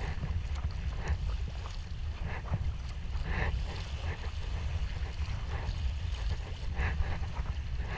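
Paddle splashes and water slapping against the hull of a Prijon Seayak 500 LV sea kayak under way, over a steady low rumble. The clearest splashes come about three and a half seconds apart.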